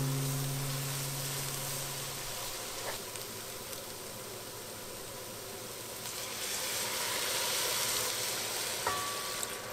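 Chopped vegetables and flour sizzling in a hot pot, then chicken stock poured in, the hissing and splashing growing louder from about six seconds in.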